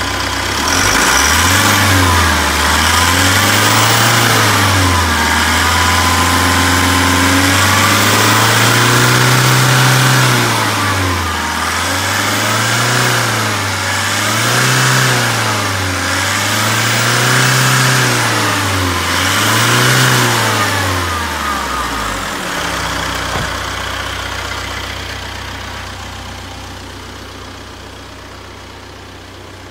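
Isuzu Elf light truck's engine being revved in a series of throttle blips, the pitch rising and falling about every two to three seconds, with one longer held rev. It then drops back to a steady idle about 22 seconds in, growing fainter near the end.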